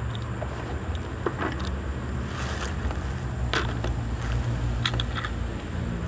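Motorcycle engine running with a low, steady rumble, a few short clicks over it.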